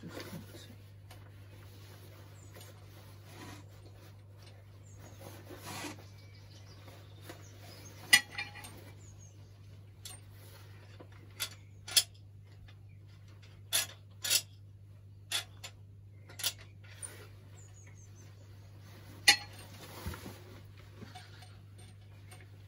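Metal tools clinking and knocking against brass compression fittings on copper pipe as a fitting is tightened up: about ten sharp, irregular clinks, mostly in the second half, with faint rubbing between them. A faint steady low hum runs underneath.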